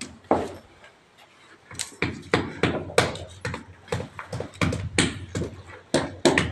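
Mahua (dori) seed shells being cracked open by hand, several at once: irregular sharp cracks and clicks, about two or three a second, with a short lull about a second in.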